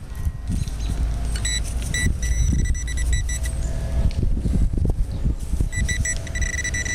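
A handheld metal detecting pinpointer probe sounding its high steady alert tone twice, first in short broken stretches and then more steadily near the end, as it is worked in the dig hole over a metal target. Underneath runs a low rumble of handling and hands working the soil.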